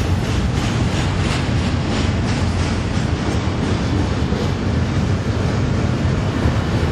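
Double-stack intermodal well cars of a freight train rolling past: a steady, deep rumble of steel wheels on rail, with a quick run of clickety-clack as the wheels cross rail joints during the first few seconds.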